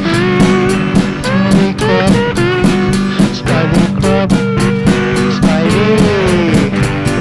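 Instrumental indie pop with guitar over a steady, fast beat, and melody lines that bend in pitch. No singing.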